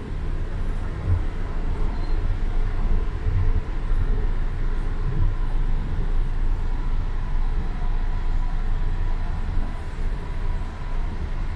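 Cabin noise of a TCDD E23000 electric multiple unit running at speed: a steady low rumble from the running gear, with a faint steady whine that grows clearer in the second half.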